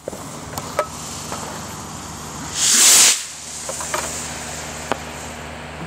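Model rocket motor hissing after launch: one short, loud, high-pitched hiss about two and a half seconds in, lasting under a second, with a few faint clicks around it.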